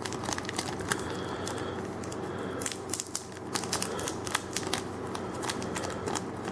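Foil booster-pack wrapper crinkling and crackling as hands work at a stubborn pack to pry it open, a dense run of irregular crackles.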